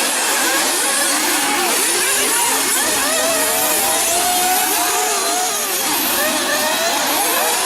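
Several 1/8-scale nitro buggy engines running at once, with many overlapping whines rising and falling as the cars rev and back off around the track.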